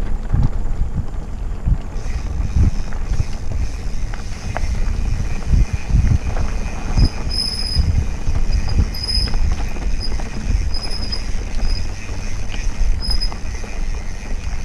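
Mountain bike rolling over a dirt singletrack: a constant low rumble and knocking from the tyres and frame on the trail, with wind on the microphone. From about halfway through, several short, high-pitched squeals of the bike's squeaky brakes as they are dabbed.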